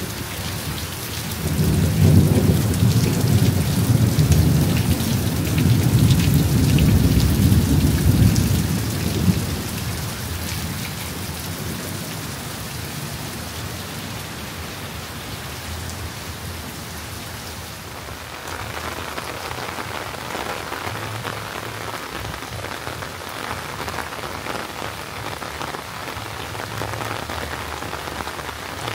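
Heavy rain falling steadily, with a long low rumble of thunder lasting about eight seconds in the first third. About two-thirds of the way through, the rain takes on a brighter, closer spatter.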